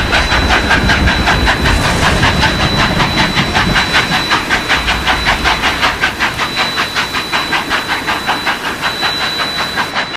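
Steam locomotive working at speed, its exhaust chuffing in an even rhythm of about four beats a second over a steam hiss and a thin steady high tone. A deep rumble under it fades about six seconds in.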